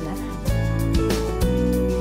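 Background music: a gentle instrumental with held notes over a steady bass, new notes starting about twice a second.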